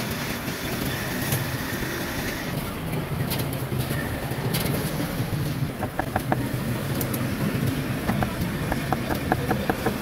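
Steady traffic rumble. About six seconds in, a steel cleaver starts chopping roast meat on a wooden chopping block, a few strokes and then a quick run of them, each knock with a brief metallic ring.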